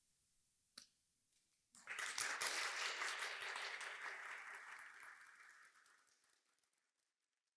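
Audience applauding, breaking out about two seconds in as a dense patter of many hands, then fading away over the last few seconds.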